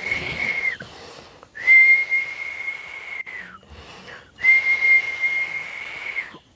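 A person whistling three long, level notes at one high pitch, each about one and a half to two seconds long, with each note sagging slightly in pitch as it ends.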